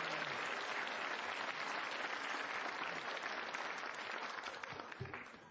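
Audience applauding after a punchline, a dense steady clatter of clapping that dies away near the end.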